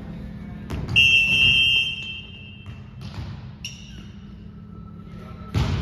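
A volleyball struck hard, then a referee's whistle blown in one long steady blast, with a second shorter high tone about three and a half seconds in. Another hard hit of the ball near the end.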